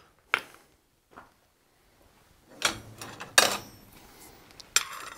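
A few separate knocks and clinks of blacksmith's hand tools being handled and set down on the steel anvil, with a short scraping rustle near the end.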